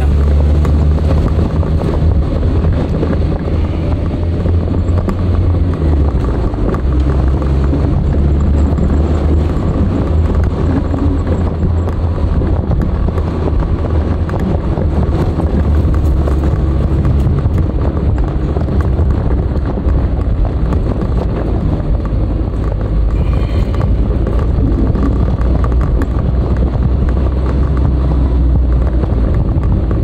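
Nissan Skyline DR30 RS Turbo's FJ20ET turbocharged inline-four running under way, a steady drone whose pitch shifts up and down several times with the throttle and gear changes, over road noise.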